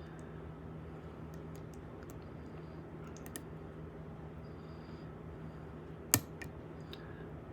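Light metallic clicks and ticks of a lock pick working the pins of a Medeco 51S lock cylinder, with one sharp, louder click about six seconds in. A steady low hum runs underneath.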